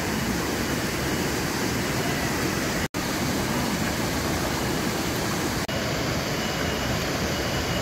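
Steady rushing noise, cut off abruptly for an instant twice.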